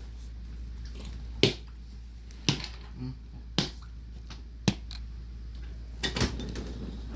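Sharp single clicks, about one a second, four in a row and then a few closer together near the end, over a steady low hum.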